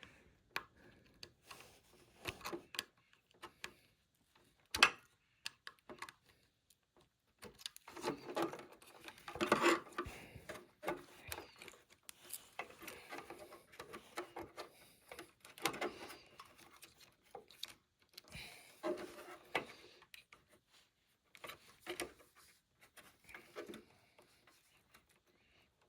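Small handling sounds of wiring work: scattered light clicks, scrapes and rustles as insulated spade connectors are worked onto the terminals of a replacement rocker power switch, with quiet gaps between.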